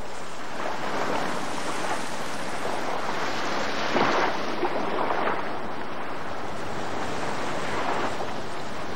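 Surf washing on a rocky shore, a steady rush of water that swells a little about four seconds in.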